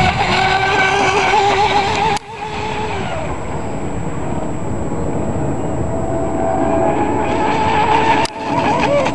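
Vortex 24 RC boat's motor whining at speed, its pitch wavering. The whine cuts off abruptly about two seconds in, then builds back near the end and cuts off sharply again.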